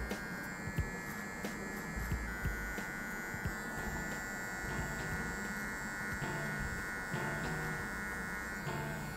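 Electric hair trimmer buzzing steadily while edging the hairline around the ear.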